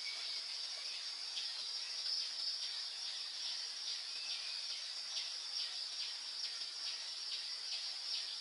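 Steady, high-pitched chorus of insects (crickets or cicadas), a continuous shrill buzz with faint rapid pulsing through it.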